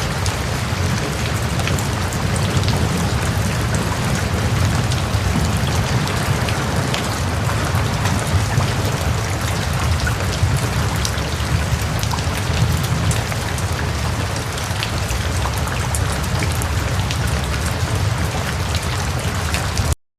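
Heavy rain falling steadily, with a steady low rumble beneath it and many sharp individual drop hits. It cuts off suddenly near the end.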